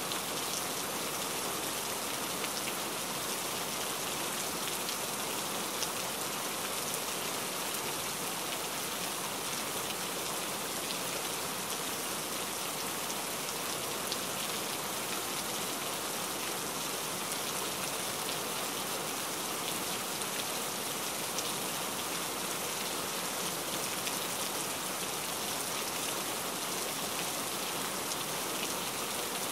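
Steady rain falling, an even hiss of many drops with a few sharper single drop ticks scattered through it.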